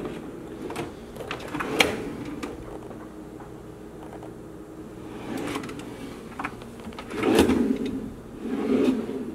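Wooden kitchen drawers sliding open and shut on their runners, with a sharp click about two seconds in and longer sliding sounds near the end, the loudest about seven and a half seconds in.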